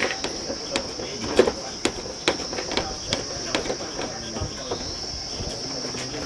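Steady high-pitched insect chorus, with sharp clicks or taps about twice a second from hands and tools working at a motorbike's handlebars.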